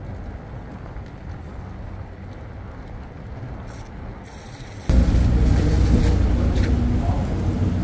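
Low, steady vehicle rumble that turns suddenly much louder about five seconds in, with a steady engine hum under it.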